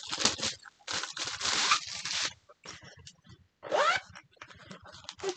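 Zipper on a fabric project bag being pulled open in a few rasping strokes, the last one rising in pitch.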